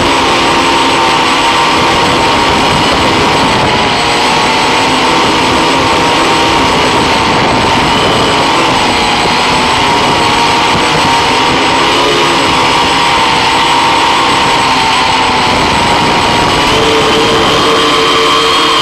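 Octocopter's electric motors and propellers whining steadily in flight, heard from on board, the pitch wavering a little as the throttle changes.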